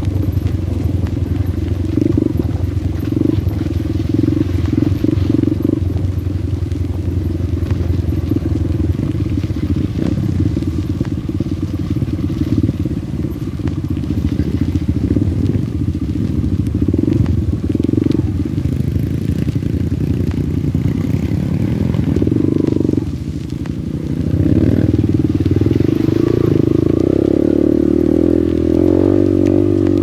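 Single-cylinder trail bike engine, a Yamaha XTZ125, running under way on a muddy dirt trail, its pitch rising and falling with the throttle. It drops off briefly about three-quarters of the way through, then holds at steadier, higher revs.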